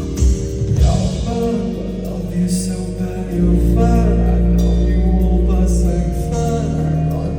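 Concert song played over the venue's sound system: singing over a backing track with deep, sustained bass notes that swell about three and a half seconds in.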